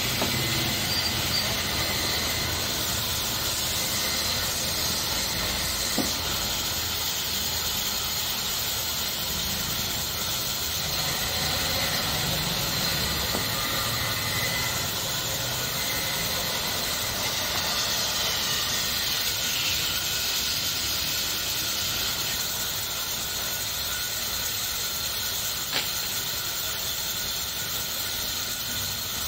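Steady hiss of running workshop machinery, with a sharp knock about six seconds in and another near the end.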